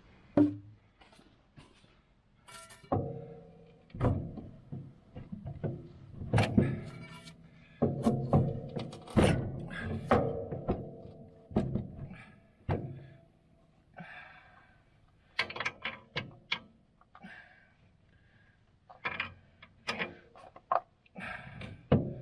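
Irregular clanks and thunks of tools and steel parts being worked on a Sno-Way snow plow's mount and frame, several strikes ringing briefly.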